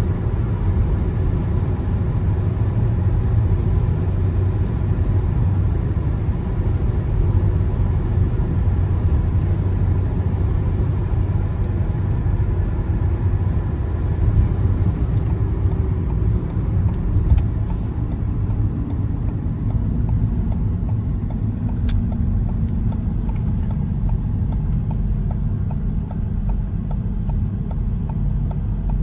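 A car driving, with a steady low rumble of road and engine noise. There is a single sharp click about three-quarters of the way through.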